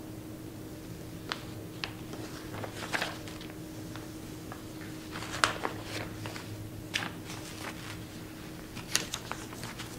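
Kitchen handling sounds from cake preparation: scattered light clicks, taps and brief rustles from utensils, parchment and cake being worked by hand. The sharpest taps come about halfway through and again near the end.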